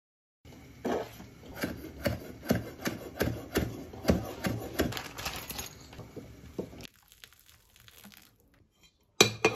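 Kitchen knife chopping a spring onion on a wooden cutting board: a run of uneven knocks for about six seconds. It then turns faint, with water being poured from a kettle onto a block of instant noodles in a bowl near the end.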